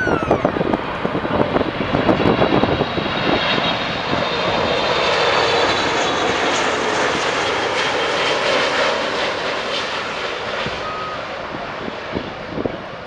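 Boeing 777-300ER's two GE90-115B turbofan engines at approach power as the airliner passes low overhead on final approach. The jet rush swells with a high fan whine, is loudest about halfway through, then fades as the aircraft moves on toward touchdown.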